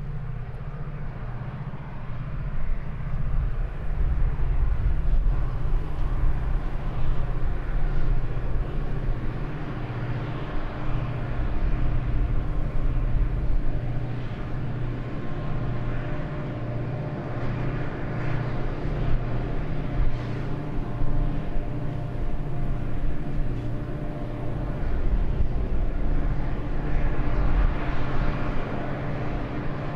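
Two Pacific National 81 class diesel-electric locomotives, each with an EMD 645 two-stroke V12, hauling a wheat train up a grade: a steady, deep engine rumble with a held low hum, swelling as they pass.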